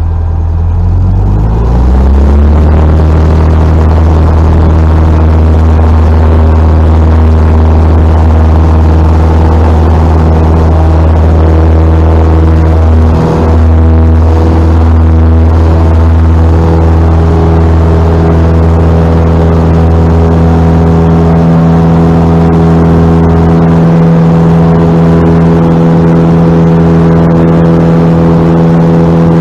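The Cessna 172's piston engine and propeller, heard loud from inside the cabin. The engine rises quickly in pitch to full takeoff power a second or two in, then runs steadily at full throttle through the takeoff roll.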